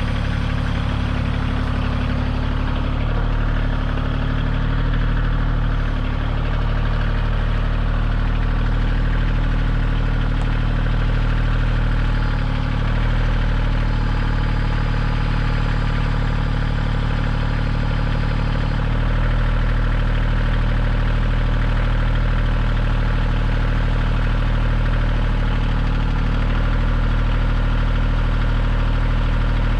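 Kioti CK2610 compact tractor's diesel engine running steadily, its tone shifting slightly about two-thirds of the way through.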